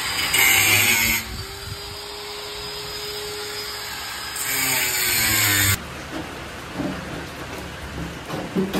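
Electric angle grinder spinning with a steady whine and biting into rusted steel body sheet in two loud stretches, one near the start and one about four to five seconds in, while the rotten panel is cut out. It stops suddenly just under six seconds in.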